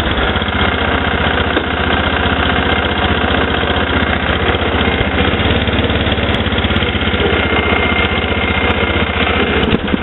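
Snapper LT11 riding lawn tractor's Briggs & Stratton engine running steadily while the tractor is driven.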